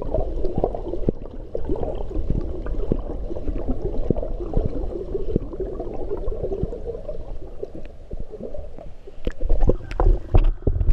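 Muffled underwater pool noise heard through a submerged camera: gurgling water and the thuds of a swimmer's freestyle kicks and strokes. About nine seconds in the camera comes up through the surface, and the splashing turns louder and sharper.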